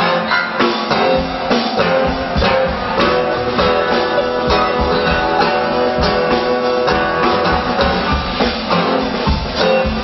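Live band playing an instrumental passage: acoustic guitar strumming chords over a drum kit keeping a regular beat.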